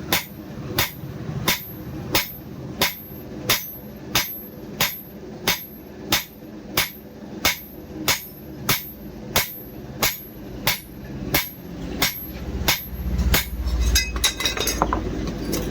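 Hammer blows on steel at an anvil, forging a knife blade: a steady rhythm of ringing metallic strikes, about three every two seconds. The blows stop near the end, giving way to a low rumble and a scatter of small metallic clinks.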